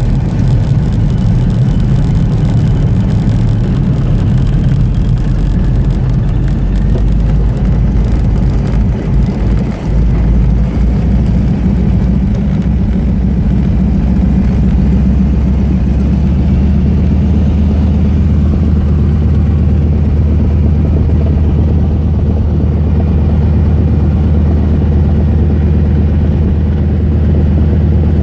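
Single-engine light aircraft's piston engine and propeller running loud and steady while taxiing, heard from the cockpit. About halfway through, the engine note changes and settles into a deeper steady tone.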